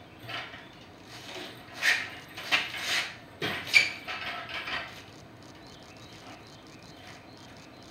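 Metal clanking from a steel engine hoist and its chain-hung engine block being handled: a run of sharp knocks and clanks from about two to five seconds in.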